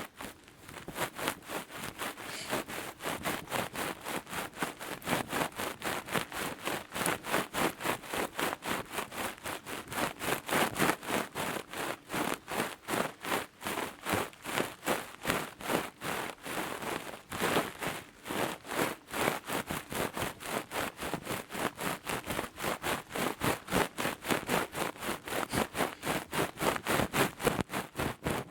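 ASMR ear picking: rapid, even scratching strokes very close to the microphone, about four a second, with no pause.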